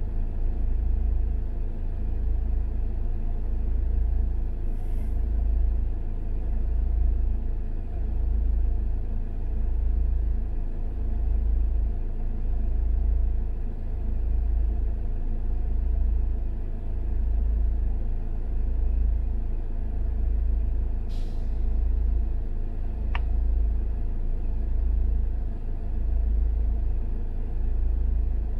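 Low, steady rumble of idling engines in stopped traffic, heard from inside a car, throbbing about once every second and a half. Two brief hisses and one short sharp click stand out over it.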